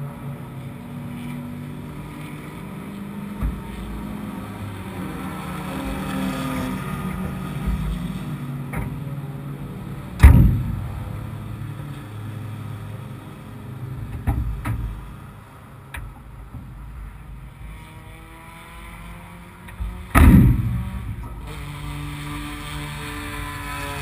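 Car engine idling steadily. Its hood is slammed shut with a loud bang about ten seconds in, and a second loud thump comes about twenty seconds in.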